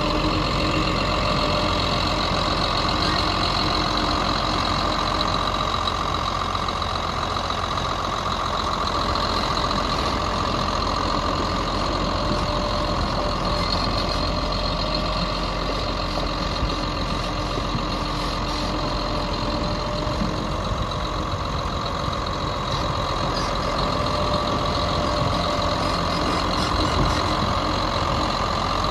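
Caterpillar Challenger 75D rubber-tracked tractor's diesel engine running at a steady speed as the tractor drives slowly on its tracks.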